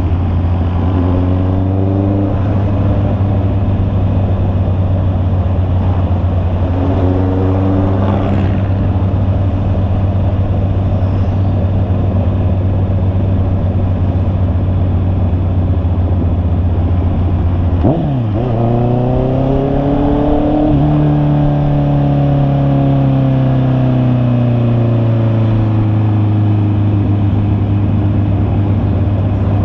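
Honda CB650R inline-four engine running steadily under way. A little past halfway the note dips sharply, then climbs and slowly falls away over several seconds as the bike accelerates and eases off.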